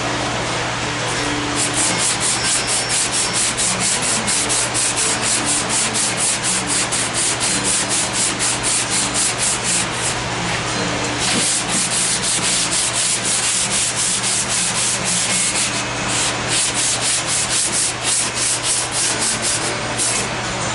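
Long sanding block being pushed back and forth by hand over body filler on an MGB's dog leg panel, at about three strokes a second. There is a short break about halfway through and brief pauses near the end.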